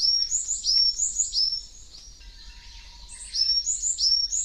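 A recording of a bird calling: a run of short, high-pitched notes, each dropping quickly in pitch, about three a second. The calls pause for about a second midway and then resume.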